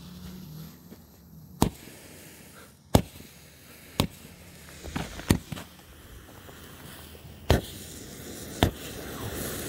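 Firework buried in snow going off: about seven sharp cracks at irregular intervals over a steady hiss that grows louder near the end as it burns through the snow.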